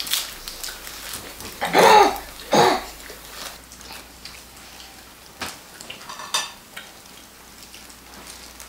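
Spoons and chopsticks clinking against dishes during a meal, with a few sharp clicks past the middle. About two seconds in come two short high squeals that fall in pitch, the loudest sounds here.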